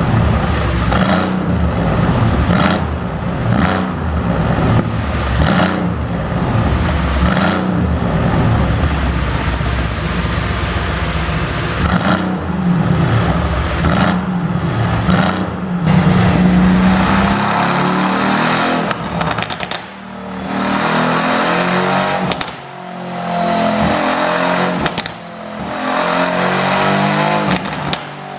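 Mercedes-AMG C63's twin-turbo V8, with an exhaust tune set up for pops and crackles, revving and running loud. In the first half the revs swell and drop again and again. Later it pulls hard with brief dips in loudness every couple of seconds and a high whine rising and falling over it.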